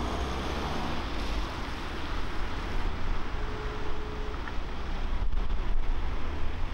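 Wind buffeting the microphone over the low rumble of an ambulance's engine as it pulls away, growing louder near the end as it comes closer.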